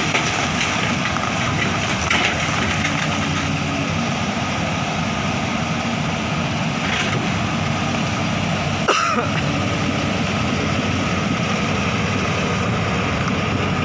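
LiuGong 920E hydraulic excavator's diesel engine running steadily, with a single sharp metallic knock about nine seconds in.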